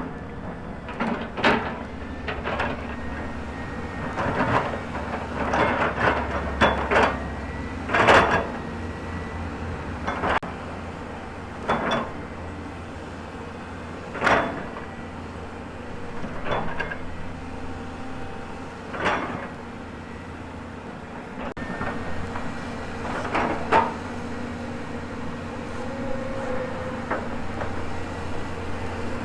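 Volvo excavator's diesel engine running steadily, with irregular clanks and knocks from the working bucket and arm, about a dozen in all, the loudest about eight seconds in.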